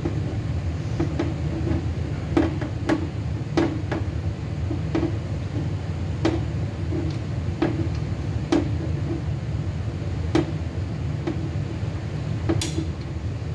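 Hand wrench turning the draw bolt of a knockout punch through a steel oil pan, giving a sharp click about every second, over a steady low hum.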